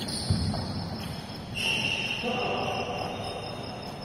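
Badminton racket striking a shuttlecock once with a sharp smack about a third of a second in, ringing in a large hall. Crickets chirp steadily behind it.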